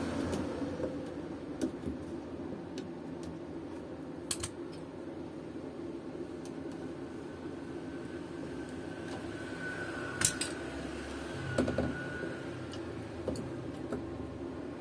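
Scattered light clicks and taps of hand tools and small parts being handled during disassembly of a car's steering column area, the sharpest one about ten seconds in, over a steady low hum.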